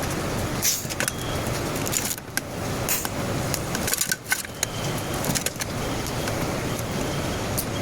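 Light metallic clinks and taps scattered over a steady background hiss.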